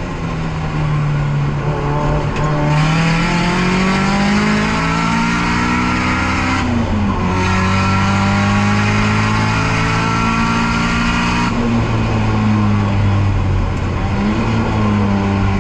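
Nissan S13's turbocharged SR20DET four-cylinder driven hard on track, heard onboard: the engine note climbs through the revs, drops at a gear change about six and a half seconds in and climbs again. About eleven and a half seconds in the throttle closes and the revs fall, then the engine pulls up again near the end.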